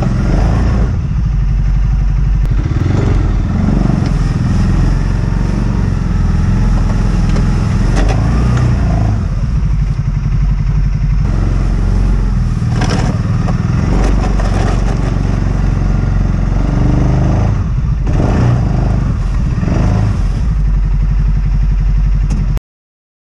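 Segway Snarler ATV engine running steadily under load as it pushes heavy snow with a front plow blade, with a few knocks and clatter from the plow. The sound cuts off suddenly near the end.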